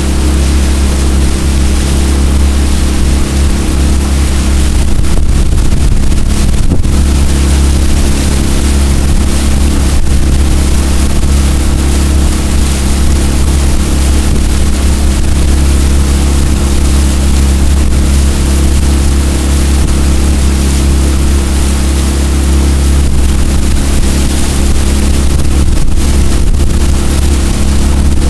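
Jon boat's outboard motor running steadily at cruising speed, over a steady rush of water and wind.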